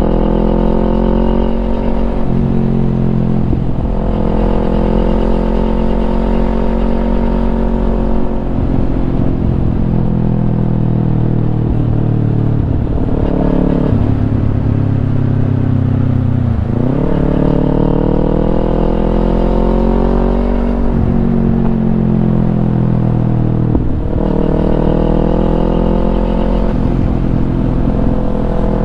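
Kawasaki Ninja 250's parallel-twin engine breathing through a Yoshimura aftermarket exhaust, its pitch climbing and then dropping several times as it works up through the gears, with one deep drop and long climb about halfway through.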